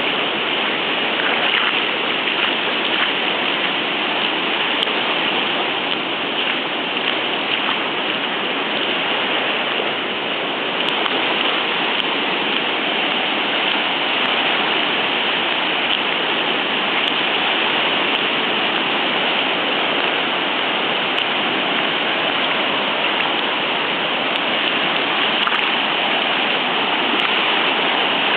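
Floodwater of the storm-swollen Deerfield River rushing past, a loud, steady roar of water.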